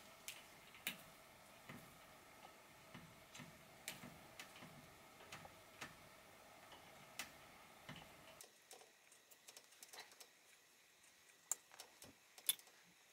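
Faint, irregular small clicks and ticks from a plastic wire nut being twisted onto stripped electrical wires and the wires being handled at the light fixture. A faint steady hum underneath cuts off about eight seconds in.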